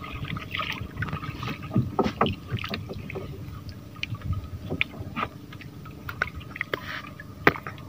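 Water splashing and knocking against a small fishing boat, with irregular short knocks and splashes over a steady hum.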